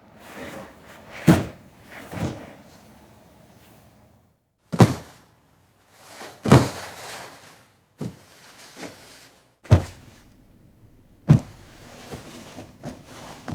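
A run of heavy thuds like slams, about five loud ones irregularly spaced a second or more apart, each with a short decaying tail, with softer knocks in between.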